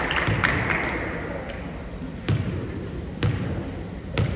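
Basketball bouncing on a gym floor: three dribbles about a second apart in the second half, over background gym noise.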